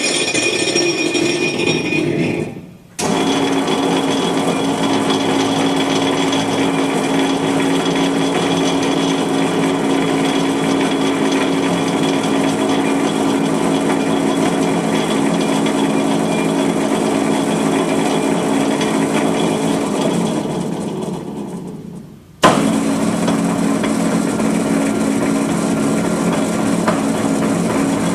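Cincinnati welding positioner's electric power tilt and rotation drive running with a steady mechanical hum. It drops out briefly about three seconds in and starts again sharply. Later it fades away over about two seconds, then starts up again abruptly.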